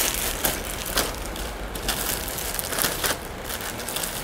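Clear plastic packaging crinkling in irregular sharp crackles as packed sets of woven table mats are handled.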